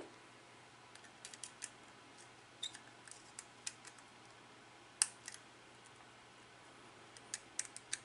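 Small sharp clicks and ticks of a screwdriver working the screw terminals of a plastic push-button contact block, coming in scattered little clusters with the sharpest click about five seconds in. A soft thump at the very start.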